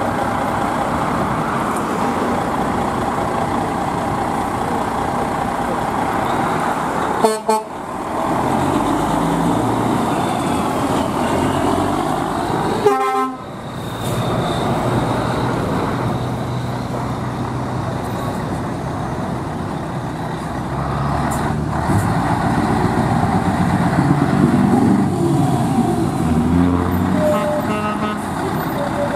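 Heavy trucks with open exhaust pipes driving past at low speed, their diesel engines rumbling and revving, with short loud horn toots about seven and thirteen seconds in and a horn near the end.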